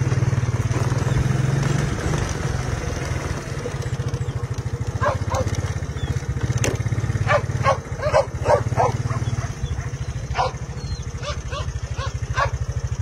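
Dogs barking and yipping in short bursts from about five seconds in, more often toward the end, over the steady hum of a small engine running.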